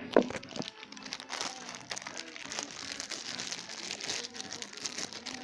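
Sticky homemade slime being handled and pulled from its plastic container: a sharp click at the start, then continuous crackling and crinkling with many small pops.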